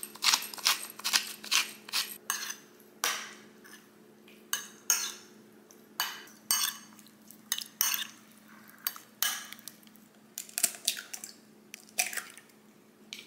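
A pepper grinder crunching for the first couple of seconds, then a metal spoon clinking and scraping against a glass bowl as a wet shrimp mixture is stirred. Near the end an egg is cracked into a glass measuring cup.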